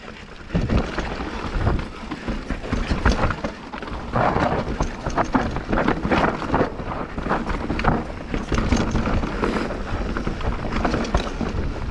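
Mountain bike riding fast down a dirt trail: steady tyre and wind rush on the microphone, dotted with frequent clattering knocks and rattles from the bike over roots and bumps.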